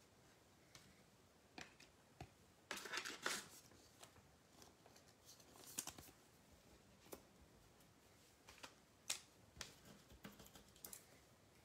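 Faint handling of trading cards and a wrapped card pack: scraping and rustling as the cards are flipped and squared by hand, with a denser rustle about three seconds in and a few sharp clicks scattered through.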